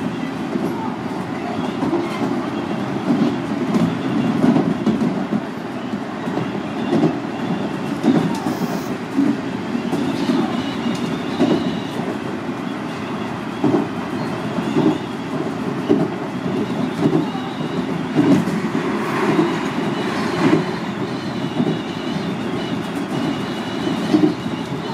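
Local commuter train running between stations, heard from inside the car: a steady rumble with the wheels clacking over rail joints, and a faint high whine.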